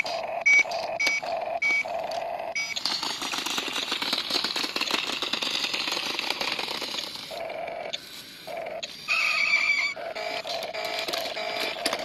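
Electronic beeps and tones from a remote-control toy motorcycle set with a handlebar controller. A steady tone carries short beeps about twice a second, then a few seconds of harsher crackling noise. After that come more steady tones and a bright beep about nine seconds in.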